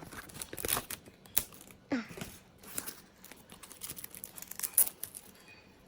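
Hands tearing open and unwrapping a photocard's plastic and paper packaging: rapid crinkling, tearing and small sharp clicks, with one louder crackle near the end.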